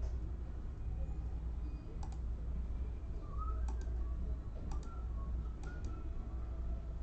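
A steady low hum with a few light clicks, mostly in close pairs, about one every second or so.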